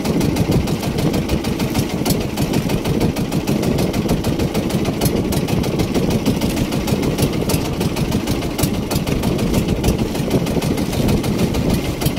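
Small boat engine of an outrigger fishing boat running steadily at low speed, an even, rapid chugging with no change in pace.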